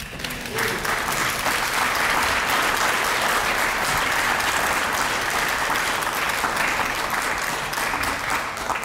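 Audience applauding after a poem ends, swelling within the first second, holding steady, then dying away near the end.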